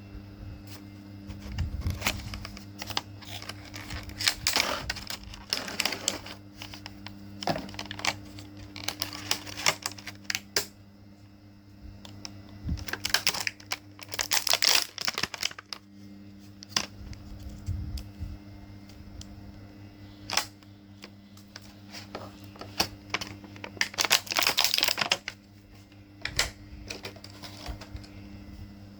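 Small hard parts being handled: clicking, tapping and scraping in three busy clusters, about a sixth of the way in, halfway and near the end, with single clicks between, over a steady low hum.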